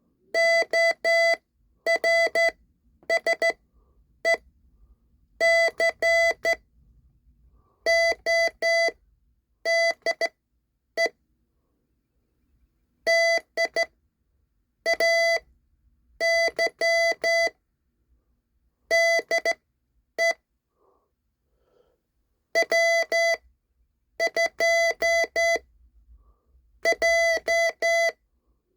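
Morse code as a single steady beep tone keyed on and off in short dots and longer dashes. It comes in groups of characters separated by pauses of about a second or two.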